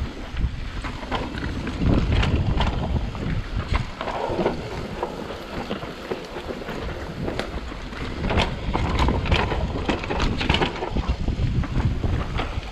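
Wind rumbling on the microphone as a downhill mountain bike runs down a dirt forest trail, with tyres rolling over dirt and dry leaves. Frequent clicks and knocks come from the bike rattling over bumps, busiest about two seconds in and again in the second half.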